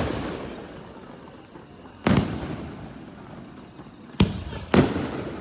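Aerial firework shells bursting overhead: three sharp booms, about two seconds in, just after four seconds and again half a second later, each followed by a long rolling echo that fades away.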